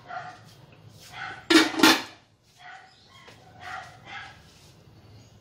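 A dog barking repeatedly in short barks about a second apart, the loudest two close together near the middle.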